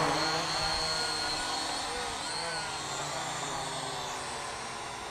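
Syma X8W quadcopter's motors and propellers buzzing in flight, a high steady whine over a lower hum, slowly fading as the drone moves away.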